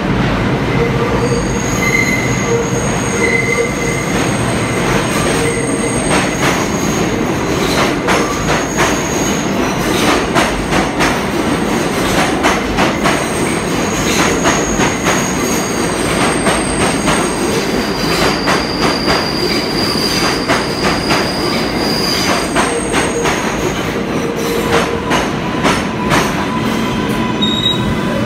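Subway train cars rolling past at the platform: a steady rumble of steel wheels on rail with high, thin wheel squeals that come and go, and from about ten seconds in a running clatter of wheels over rail joints.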